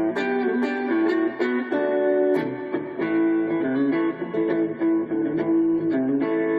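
Hadean Stratocaster-style electric guitar played through a Roland Micro-Cube amplifier: a run of picked notes and chords, a few every second, settling on a held note near the end.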